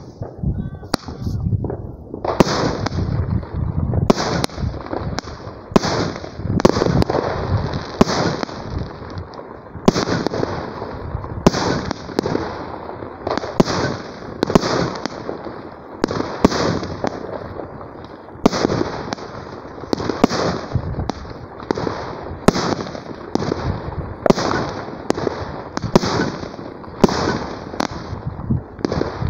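Consumer fireworks battery (cake) firing shot after shot, about one a second. Each shot is a sharp bang followed by a crackling hiss from the bursting stars that fades before the next.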